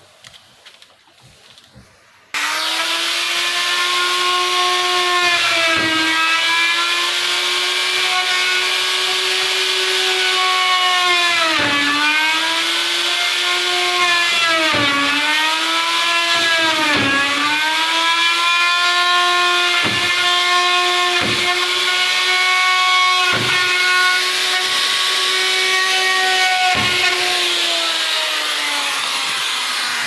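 Handheld electric power tool cutting into a solid wooden door, its motor whining steadily. About eight times the pitch sags briefly as the cutter bites into the wood under load, then recovers.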